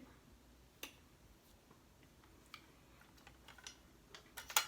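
Scattered faint clicks and taps of small objects being handled at close range, with a quick cluster of sharper, louder clicks near the end.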